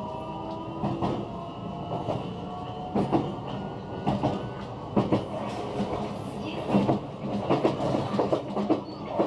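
JR West 125 series single-car electric train running, heard from inside the car: a steady motor hum with wheels clacking over rail joints, the clacks coming closer together in the second half as it gathers speed. A rising whine from the inverter-driven traction motors fades out about a second in.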